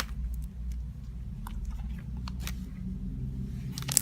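Icing slime with foam balls being squished and stretched by hand, giving scattered soft clicks and crackles, with the sharpest pops just at the start and near the end.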